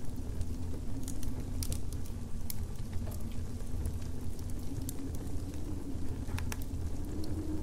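Campfire crackling, with scattered sharp pops over a steady low rumble and a slowly wavering drone.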